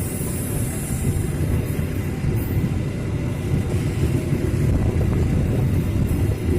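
Train running along the line, a steady low rumble.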